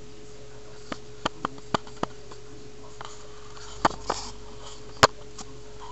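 Scattered sharp clicks and taps, about eight of them and irregularly spaced, the loudest about five seconds in, over a steady electrical hum with one constant tone.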